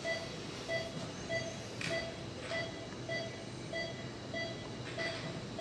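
Operating-room patient monitor beeping steadily with the pulse, short same-pitched beeps about 1.7 a second, over a low steady hum. There are a few brief soft hisses.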